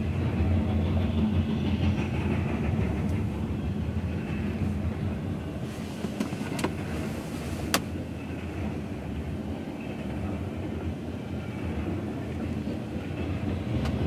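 Double-stack container well cars of a freight train rolling past: a steady rumble of steel wheels on rail, with a couple of sharp clicks about halfway through, heard from inside a car.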